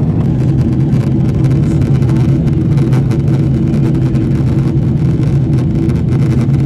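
Cabin noise inside a Boeing 777-300ER in flight: a steady, loud, low rumble of airflow and engines.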